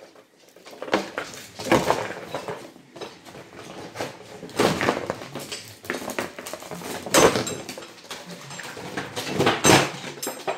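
Rigid clear plastic clamshell packaging crackling and clattering as it is pried apart by hand, with the steel frame of a .22 rimfire resetting target knocking against it as it is pulled out. The crackles and knocks come irregularly, several of them loud.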